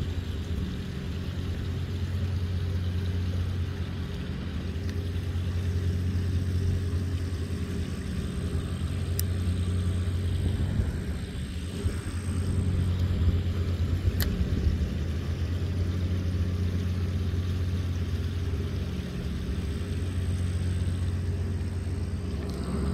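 A steady low engine hum that holds one pitch, with two faint clicks about nine and fourteen seconds in.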